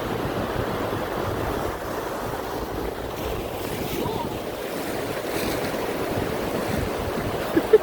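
Surf breaking on a beach, with wind blowing on the microphone: a steady rushing noise.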